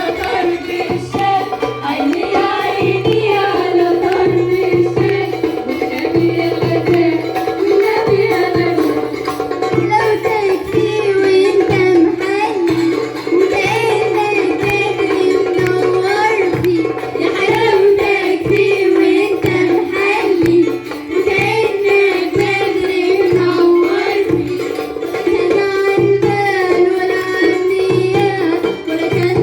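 Port Said simsimiyya folk music played live: a plucked simsimiyya lyre melody over a steady drum beat.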